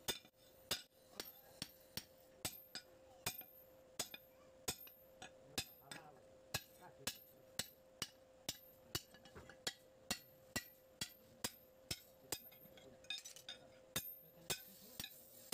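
Hand hammer striking a red-hot spring-steel cleaver blade on an anvil, forging it. The blows are sharp and metallic and come at a steady pace of about two a second, with a faint steady hum underneath.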